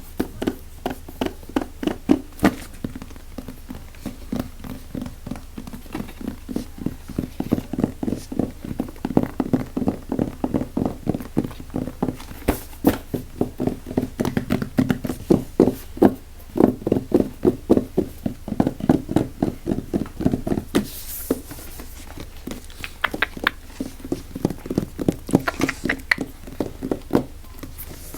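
Fast, aggressive tapping on an object as an ASMR trigger, about five sharp taps a second, with brief pauses about two-thirds of the way through.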